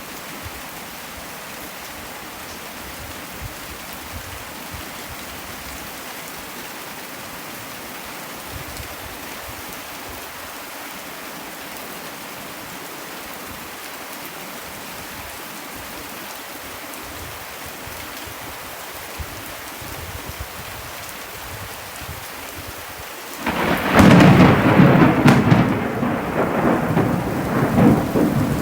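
Thunderstorm: steady rain falling, then near the end a sudden loud thunderclap that goes on rumbling.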